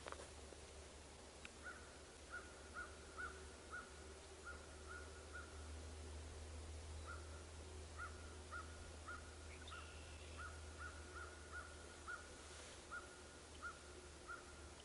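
A bird calling one short, clear note over and over, roughly twice a second with a brief pause midway. It is faint, over a steady low hum.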